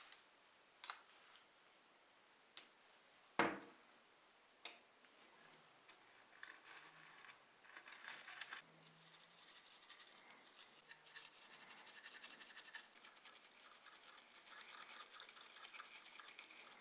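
A few light clicks and one sharp knock, then fast, steady scratching strokes from about six seconds in: a small part of a model car being scrubbed by hand.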